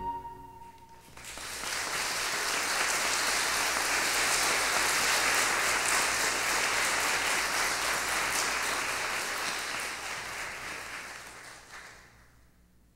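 Audience applauding: it builds up about a second in, holds steady, and dies away near the end.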